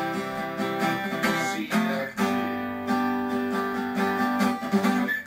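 Jasmine acoustic guitar strummed, its chords ringing and re-struck about once a second while the song's ending moves through G, F and C.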